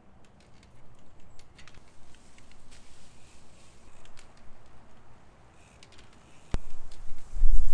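Mountain bike being ridden on a dirt trail: scattered light clicks and crunches, then a sharp click about six and a half seconds in, followed by a loud low rumble.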